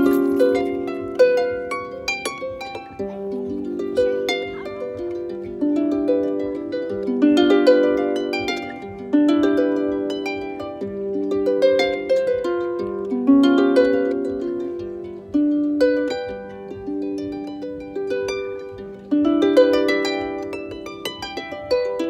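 Small wooden harp played solo: a run of plucked notes and low chords, each ringing out and fading.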